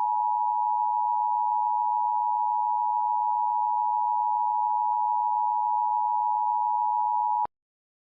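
Emergency Alert System attention signal: a steady two-tone beep held at one level, cutting off abruptly about seven and a half seconds in.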